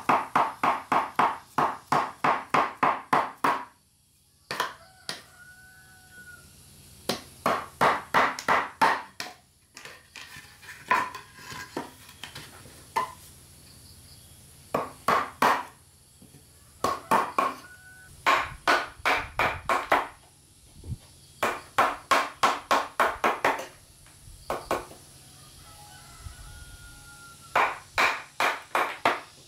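Hammer blows on wood in quick runs of about five or six strokes a second, each run lasting a few seconds with short pauses between. A rooster crows faintly in the background twice.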